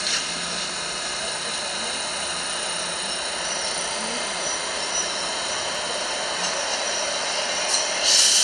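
R188 subway train standing at the platform with its doors just closed, giving a steady hum with faint whining tones, with a short thud of the doors shutting right at the start. About eight seconds in comes a loud burst of air hissing.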